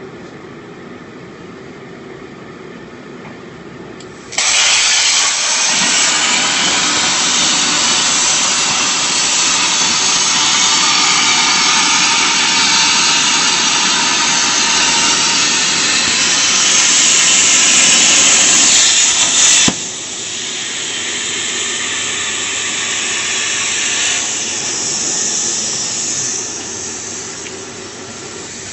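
CNC plasma cutting torch: a loud, steady hiss starts suddenly about four seconds in, runs for about fifteen seconds and cuts off sharply, over the low hum of the machine. A quieter hiss follows and eases off near the end.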